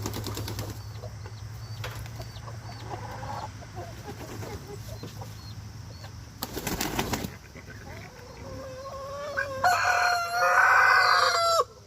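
Chickens clucking around the coop, with a short flurry of flapping wings about six and a half seconds in. Near the end comes a long drawn-out crow, the loudest sound here, which stops abruptly.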